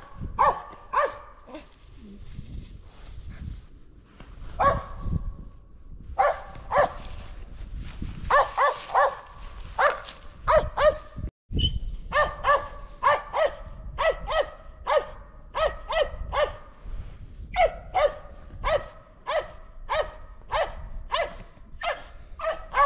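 Squirrel-hunting dog barking treed at a squirrel up a tree. The barks come in short clusters at first, then settle into a steady run of about two barks a second.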